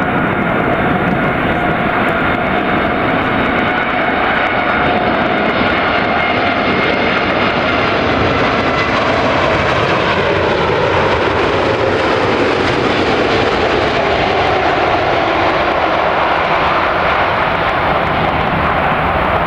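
Boeing 747 jet engines running loud and steady as the jumbo jet passes, their tones sliding downward in pitch about halfway through.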